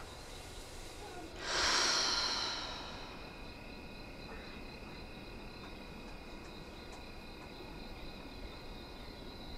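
A person's loud breathy exhale, like a deep sigh, starting about a second and a half in and fading over about a second. Under it runs a steady, faint, high-pitched trill of night crickets.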